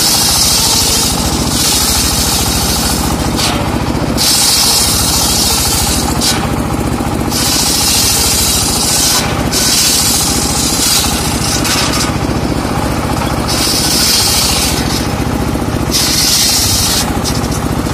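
Homemade circular saw bench ripping trembesi (rain tree) wood: the big blade and its motor run steadily, and every two seconds or so a hissing, rasping cut rises over the drone as each piece is pushed through the blade.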